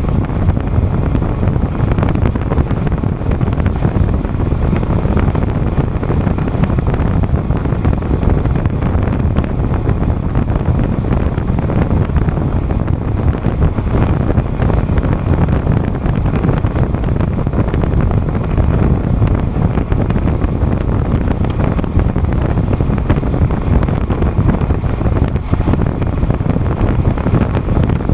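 Heavy wind buffeting on the microphone of a camera riding along with a road bike at speed, a steady low rumble with no breaks.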